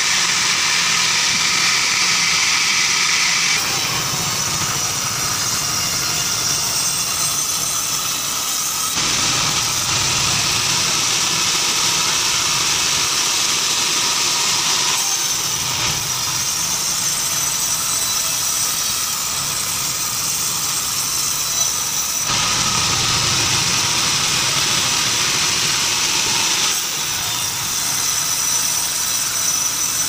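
Band sawmill headrig running steadily, with a high mechanical whine over the machinery noise. The sound shifts abruptly in level and tone four or five times.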